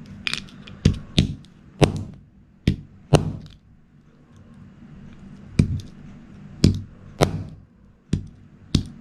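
Claw hammer striking a fitness-band tracker pod on a wooden block: about eleven sharp knocks in irregular clusters, with a pause of about two seconds midway.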